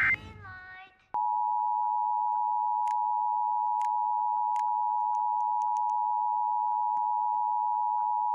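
The National Weather Service's 1050 Hz warning alarm tone, sounded as a test: a single steady, unchanging tone that starts about a second in and holds. Before it, a fading electronic tone slides down in pitch.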